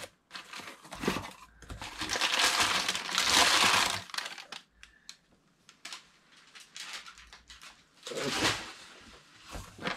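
Packaging being handled and unwrapped: crinkling and rustling, strongest from about two to four seconds in and again about eight seconds in, with scattered small clicks and taps between.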